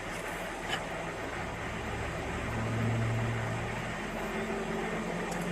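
Car engine and road hum heard from inside the vehicle's cabin, a steady low drone that swells briefly about halfway through.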